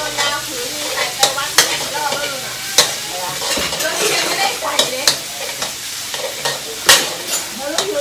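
Metal spatula stirring and scraping food in a steel wok over a gas burner, with a steady sizzle of frying and sharp clanks of the spatula striking the pan every second or so, the loudest near the end.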